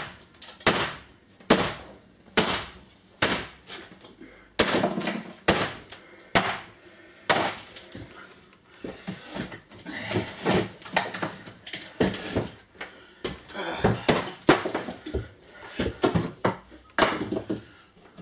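A wooden cupboard being bashed and broken apart: a run of sharp bangs and cracks, about one a second at first, then in quicker clusters.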